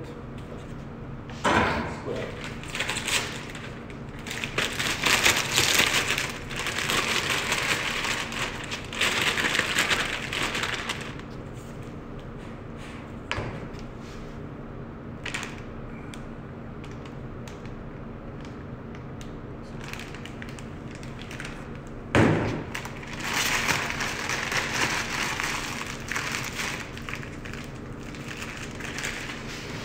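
A plastic piping bag rustling and a spatula scraping a metal bowl as brownie batter is filled into the bag, in stretches of several seconds. A thump comes about a second and a half in and another about 22 seconds in, over a faint steady hum.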